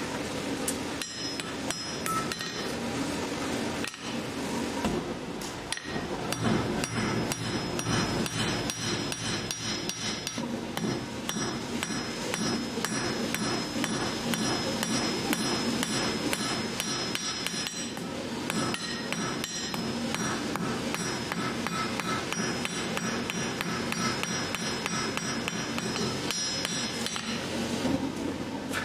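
Hammer blows on a red-hot steel rod on an anvil, struck over and over in quick succession, with a ringing metallic tone between the strikes.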